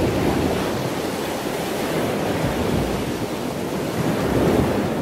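Ocean surf: waves washing and breaking, a continuous rush of water that swells about half a second in and again near the end.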